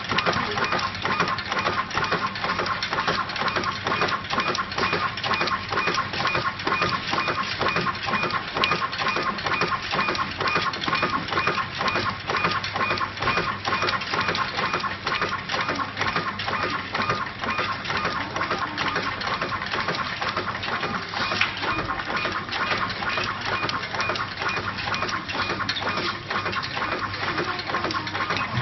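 SKILT automatic tube printing and labeling machine running: its roller conveyor and label applicator give off a dense, rapid clicking and clatter as plastic tubes are carried through and labelled. Underneath is a steady hum and a faint, pulsing high whine.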